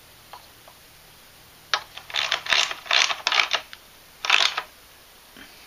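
Ratchet wrench clicking in short runs as it drives the bolts holding a plastic vacuum fuel pump onto a Briggs & Stratton engine. The clicking starts about two seconds in, with a last short run about four seconds in.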